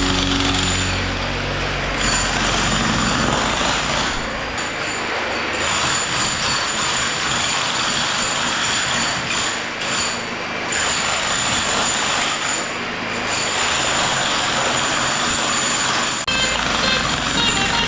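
Jackhammer hammering into a concrete block, a steady fast rattle with a few short lulls.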